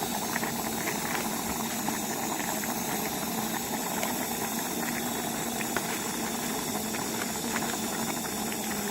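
Backpacking stove burner hissing steadily under a pot of water at the boil, with a few faint crinkles and clicks from a foil soup packet being searched by hand.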